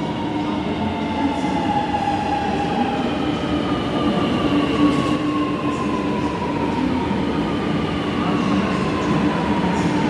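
Electric metro train pulling into a station platform and slowing, with a whine that falls steadily in pitch as it brakes, over a steady rumble of wheels and running gear.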